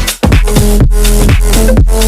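Electronic dance music with a steady beat, briefly cutting out just after the start.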